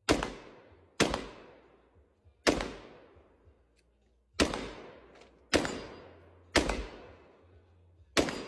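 5.56 AR pistol fired in single shots: eight shots at an uneven pace, roughly one a second with a longer gap near the middle, each trailing off in an echo.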